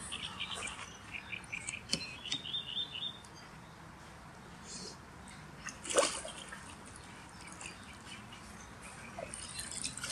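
Small birds chirping and singing through the first three seconds, then a single loud splash about six seconds in as a large carp, about 14.5 kg, thrashes at the surface while being released from a sling into the water.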